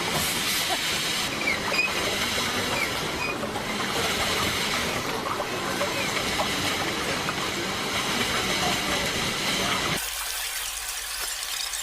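Steady rushing background noise with faint, scattered voices, which thins abruptly to a lighter hiss about ten seconds in.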